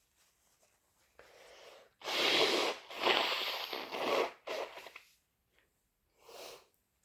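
A person's harsh, wet induced sneeze: a softer breathy intake about a second in, then a loud noisy sneeze burst at about two seconds that trails on for about two seconds. Two shorter breathy sounds follow.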